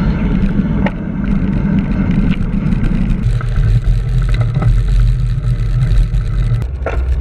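Heavy trucks running close alongside a bicycle, heard through a handlebar camera's microphone: a loud, steady low engine and road rumble that changes abruptly about three seconds in and again near the end.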